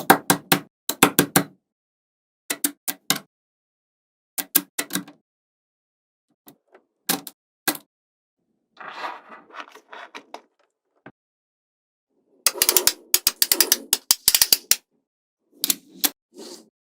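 Small magnetic balls clicking as they snap together, in short clusters of sharp clicks with silent pauses between them, and a longer run of rapid clattering clicks near the end.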